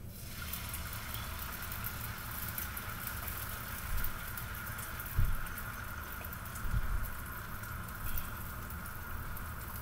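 Egg whites sizzling steadily in hot butter in a frying pan, the hiss starting as soon as they hit the pan. A few low thumps come midway.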